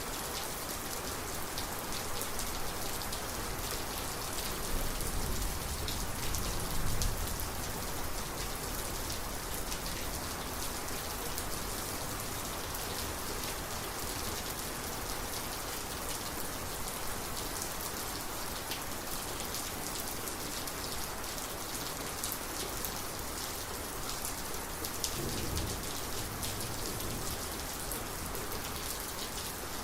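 Steady rain falling during a thunderstorm, a dense hiss with many individual drops ticking. Low thunder rumbles twice, about five seconds in and again about twenty-five seconds in.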